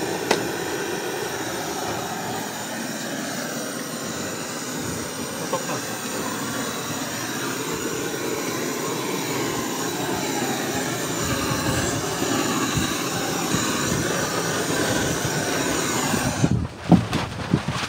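Butane canister blowtorch burning with a steady hiss as its flame is played along PVC electrical conduit to soften it for bending. The flame cuts off near the end, followed by a few sharp clicks.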